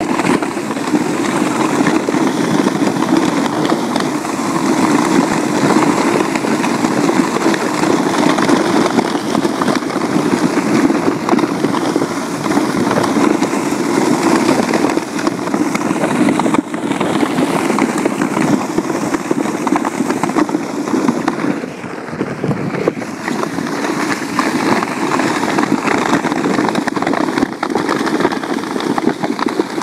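Steady rolling and crunching noise of the wheels of a husky-pulled rig running over a snowy, icy gravel road.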